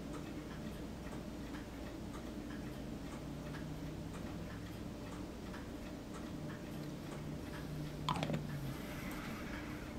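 Steady soft ticking over a low hum, with one short louder sound about eight seconds in whose pitch falls.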